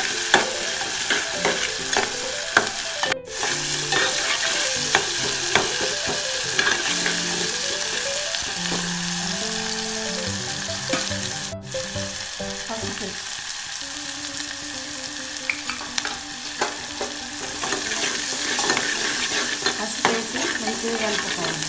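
Sliced onions and green chillies sizzling in hot oil in a metal pot, frying until golden, while a metal spoon stirs them and scrapes and clicks against the pot.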